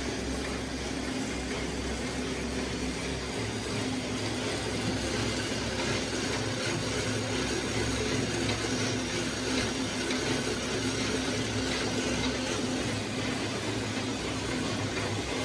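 Electric cotton wick making machine running with a steady mechanical whir over a constant hum.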